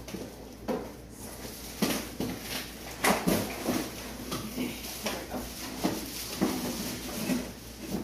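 Plastic packaging rustling and crinkling, with irregular clicks and knocks as vacuum cleaner parts are handled and unpacked.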